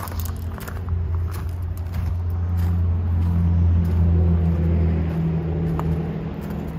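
Vehicle engine idling: a steady low hum that grows louder about three to five seconds in, then eases back.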